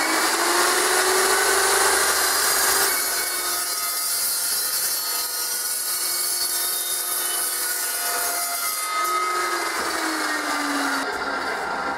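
Evolution dry-cut metal chop saw with a toothed blade cutting through a steel tube. Its motor whine rises as it comes up to speed, holds steady through the cut, and falls away near the end as the blade spins down.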